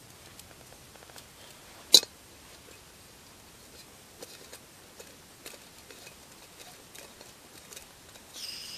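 Miniature camping gas burner being handled and screwed onto a gas canister. A sharp metal click about two seconds in is followed by light metallic ticks as it is threaded on, and a short hiss near the end.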